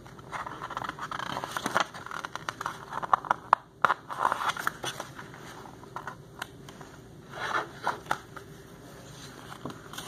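Pages of a picture book rustling and scraping as the book is handled and turned over, with many small crackles and taps and a few louder rustles.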